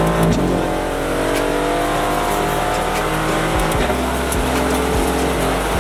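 Aston Martin Vantage GT4's 4.0-litre twin-turbo V8, heard from inside the cabin as the car accelerates. The engine note drops once, about a quarter second in, at an upshift, then climbs steadily through the next gear.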